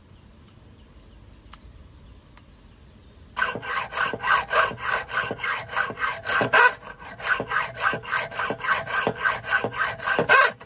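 Rasping back-and-forth strokes of a hand tool, sawing or cutting into material, at about four strokes a second. It starts about three seconds in and stops abruptly near the end.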